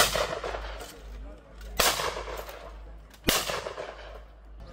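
Three shotgun shots at clay targets, roughly one and a half seconds apart: one right at the start, one a little under two seconds in and one just over three seconds in, each a sharp report with a short fading tail.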